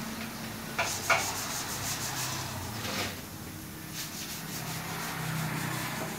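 Rubbing and scraping with two sharp knocks about a second in, from hand work on a motorcycle, over a steady outdoor background.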